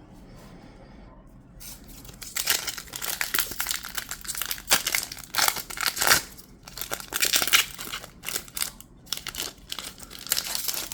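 Foil Pokémon booster pack wrapper being crinkled and torn open, starting about two seconds in as a run of irregular rustles and rips.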